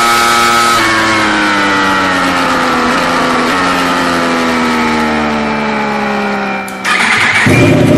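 Yamaha R1 inline-four engine and exhaust holding a high, steady note, then falling slowly in pitch as it slows, with a small jump in pitch about three and a half seconds in. Near the end there is a sharp click, then a lower, rougher engine note.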